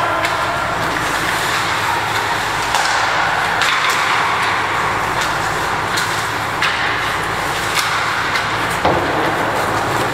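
Youth ice hockey play heard from the boards: a steady hiss of skates on the ice with scattered sharp clacks of sticks and puck, and a heavier knock near the end.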